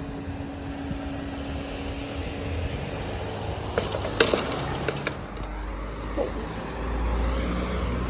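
Road vehicles running at a level crossing as it reopens to cars, with a low engine rumble that swells near the end. A few sharp knocks come about four seconds in.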